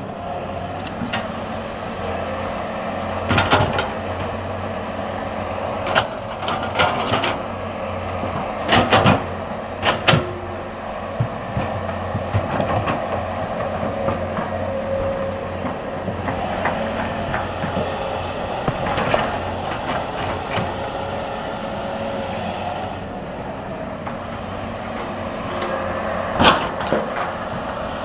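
Excavator engine running steadily, with repeated sharp clanks and knocks as its bucket digs into and moves large rocks.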